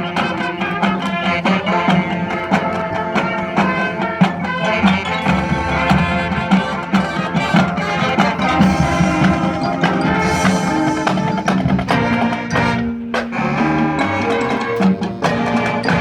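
High school marching band playing its field show: many instruments sounding sustained notes together over drums struck throughout.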